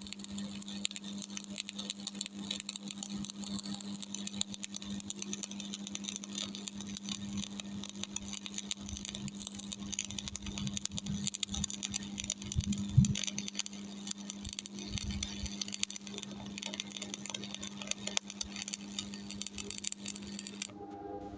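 Stick-welding arc from an E6013 3.2 mm electrode crackling steadily during a vertical-up fillet weld on a Miller Thunderbolt 225, over a steady low hum, with one louder pop past the middle. The arc breaks off suddenly about a second before the end.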